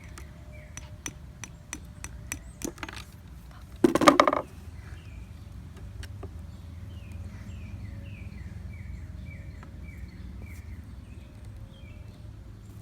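A nail tapping and clicking against a hard plastic ball as it is pushed in, with one louder, half-second scrape or knock about four seconds in. After that a bird chirps repeatedly, short falling notes about two a second, over a low steady outdoor hum.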